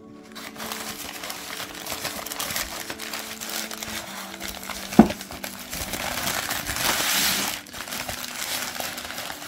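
Newspaper crinkling and rustling as a wrapped stone is unwrapped by hand, with one sharp knock about five seconds in. The crinkling gets busier a second or so after the knock.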